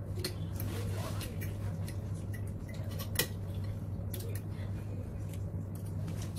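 Metal forks clinking and scraping against ceramic plates as two people eat, in scattered light clicks with one sharper clink about three seconds in, over a steady low hum.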